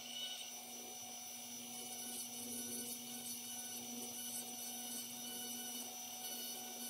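Dremel rotary tool running steadily at high speed through its flex shaft, giving an unchanging whine, as a small carving bit grinds detail between the teeth of a small oak skull.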